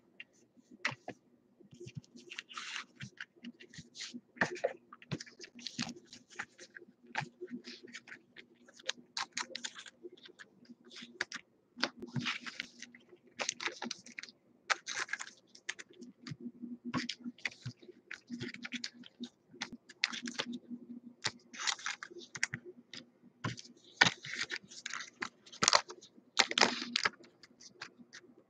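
Trading cards being handled: cards slid off a stack and slipped into soft plastic sleeves, a run of irregular light scratches, clicks and crinkles. A faint steady low hum runs underneath.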